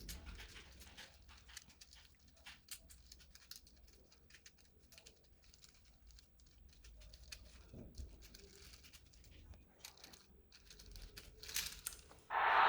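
Faint, irregular clicking and rustling of a plastic twisty puzzle toy being turned and slid by hand. Near the end a loud steady hiss starts abruptly.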